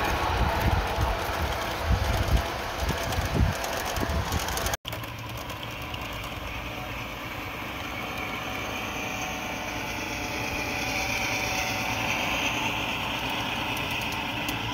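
G-scale model trains running on an outdoor garden railway: a steady running noise of wheels and motors on the track, swelling slightly as a model diesel locomotive passes close. Low thumps sound in the first few seconds, and the sound breaks off sharply for an instant about five seconds in.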